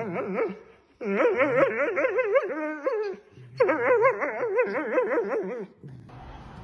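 A dog's long warbling whine-howls, the pitch wobbling rapidly up and down, in three bouts with short breaks about a second and about three seconds in; the calling stops just before the end, leaving faint room noise.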